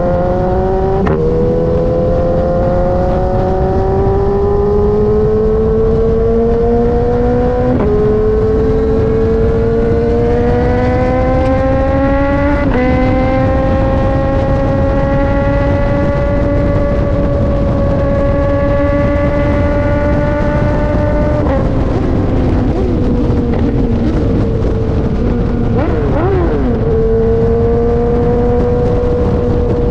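BMW S1000RR inline-four running through an Austin Racing GP1R full Inconel exhaust, accelerating up through the gears: its pitch climbs and drops sharply at upshifts about a second in, about eight seconds in and about thirteen seconds in. It then holds a steady high note, falls away about twenty-one seconds in as the throttle eases, and settles to a steady tone near the end, with a constant low rush underneath.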